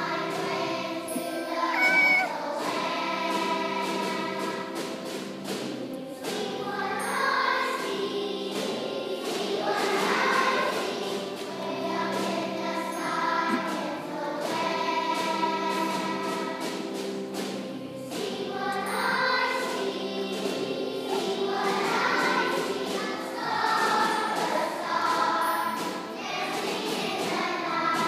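Children's choir singing, sustained notes held for several seconds between phrases.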